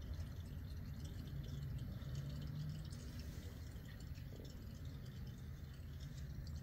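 Used engine oil trickling and dripping faintly from the oil pan into a plastic drain pan as the old oil drains out, over a steady low hum.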